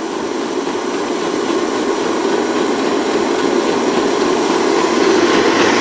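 Electric stand mixer running at speed, its whisk beating egg yolks as the hot sugar syrup goes in: a loud, steady motor whir that grows slightly louder.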